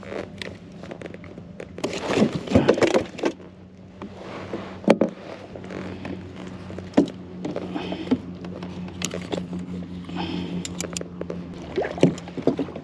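Handling noises in a plastic fishing kayak: scattered clicks, knocks and scrapes of a metal stringer and fish grip against the hull, with a burst of scraping about two seconds in. A low steady hum runs under the second half.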